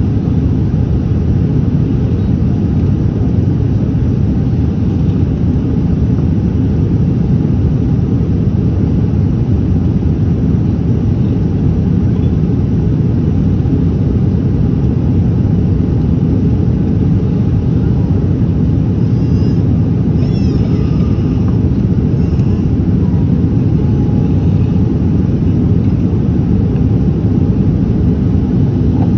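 Steady, even cabin noise of an airliner in cruise, heard from a window seat over the wing: engine and airflow noise, loudest in the low range, with no change in level.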